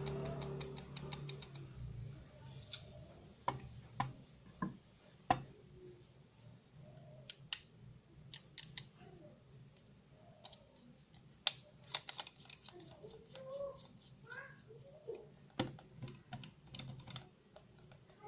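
Irregular sharp clicks and taps, like small parts and tools being handled during a repair on a CNC 3018's Z axis. A low hum fades out in the first second or two.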